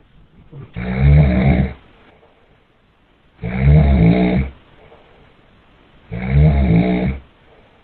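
A person snoring loudly: three long snores of about a second each, spaced roughly two and a half seconds apart.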